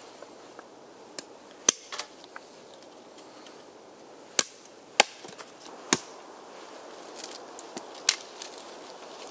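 Hatchet chopping a thin wooden pole laid across a tree stump: a series of sharp, irregularly spaced blows, loudest in the middle.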